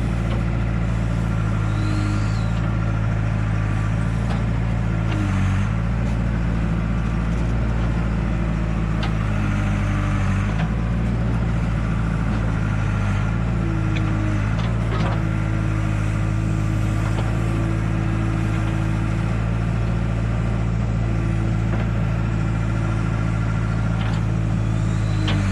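Backhoe loader's diesel engine running steadily while working earth, with a higher tone that steps up and down in pitch now and then and a few short knocks.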